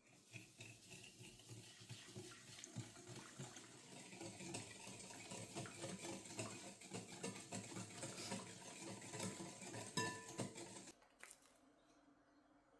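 Faint kitchen clatter of dishes and utensils clinking over running water, with one ringing clink about ten seconds in; it stops near the end.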